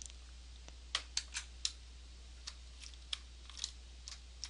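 Computer keys clicking lightly and irregularly, about a dozen taps, over a faint steady low hum.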